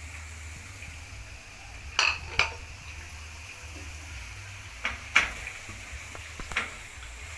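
A metal utensil clinking against a cooking pot and a ceramic plate: sharp, ringing clinks in pairs about two seconds in, about five seconds in and about six and a half seconds in.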